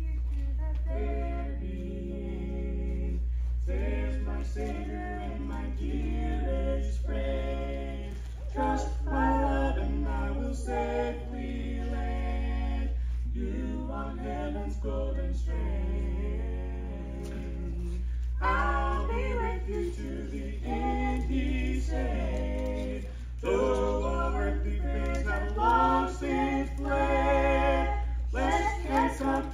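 A mixed vocal quartet of two men and two women singing a cappella, with short pauses between phrases. A steady low hum runs underneath.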